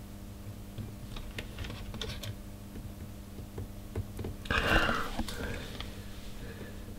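Small clicks and light scraping of fingers working the tuning knob and the inner dial scale ring of an Icom IC-201 transceiver as the scale is set by hand. A louder rustle comes about halfway through. A steady low hum runs underneath.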